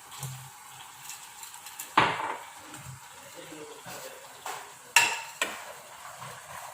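A cooking utensil stirring and clinking against a pan while food sizzles, with sharp clinks about two seconds in and twice around five seconds.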